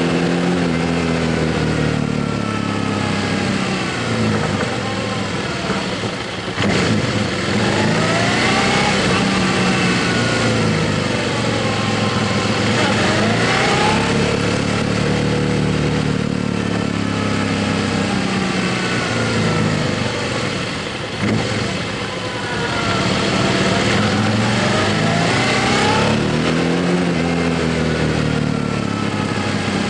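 Motorcycle engine while riding, its pitch rising and falling again and again as the throttle opens and closes, over steady road and wind noise. The engine sound dips briefly about a fifth of the way in and again about two-thirds of the way through.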